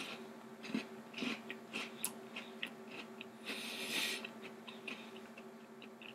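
Faint closed-mouth chewing of a Tim Tam chocolate biscuit, a few soft crunches, with a breath out through the nose about three and a half seconds in.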